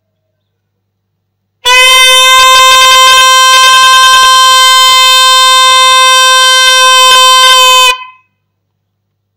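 A trumpet blowing one long, steady note for about six seconds, loud enough to distort the recording, then cutting off: a herald's call announcing a proclamation.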